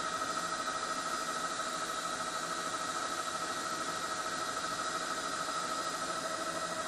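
Steady helicopter engine and rotor noise from aboard the filming aircraft: a constant hiss with an even, high turbine whine.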